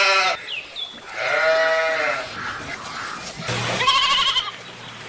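Sheep bleating three times, the last call higher and quavering.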